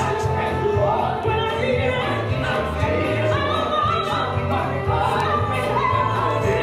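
Worship music playing over the church sound system: singing voices carrying a melody over a steady bass line.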